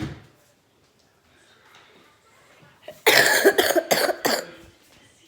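A person coughing, a short run of several quick coughs about three seconds in, after a brief knock at the start.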